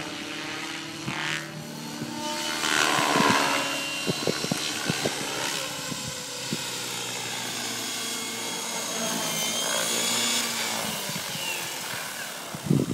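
Align T-Rex 600 Pro radio-controlled helicopter flying, its rotor and drive making a steady hum that drops in pitch near the end as it comes down to land. There are a few sharp knocks partway through and a loud knock near the end.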